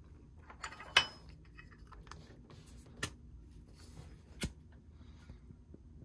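Zippo lighter being handled and lit: the insert goes back into its case, the hinged metal lid is flipped open and the flint wheel struck. Three sharp metallic clicks, the loudest about a second in, with light rustling between.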